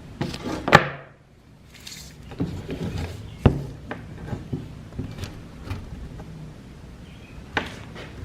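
Scattered knocks and handling sounds of tools and a plywood sheet being worked on while it is measured and marked. There is a short scratchy sound about two seconds in and sharp knocks near the start, around three and a half seconds in and near the end.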